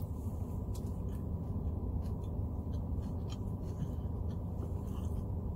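A person chewing a mouthful of burger: faint, scattered soft mouth clicks over a steady low hum in a car cabin.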